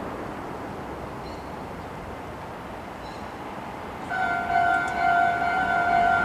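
Steady outdoor background noise, then about four seconds in a railway level-crossing warning bell starts ringing, a loud steady two-tone signal that keeps going: the crossing is warning of an approaching train.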